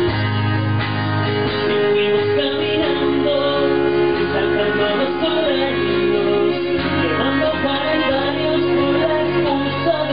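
Acoustic guitar strumming with a violin playing a wavering melody line over it, performed live.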